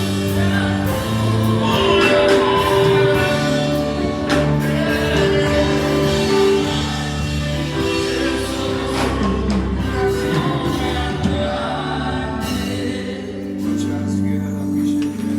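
Gospel music with singing over held, changing chords and a beat.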